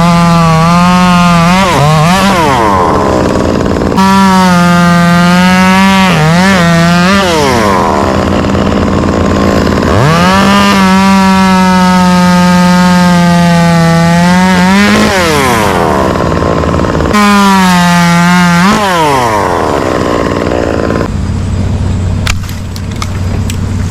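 Two-stroke chainsaw at full throttle cutting out dead wood, its high whine dipping in pitch as the chain bogs in each cut and climbing again. The run breaks off abruptly several times. About 21 seconds in it drops back to idle, with a few sharp cracks near the end.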